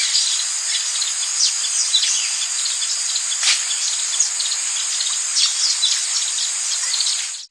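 Amazon rainforest ambience: a steady, high-pitched chorus of insects with many short, downward-sliding bird chirps scattered through it. The sound fades out quickly near the end.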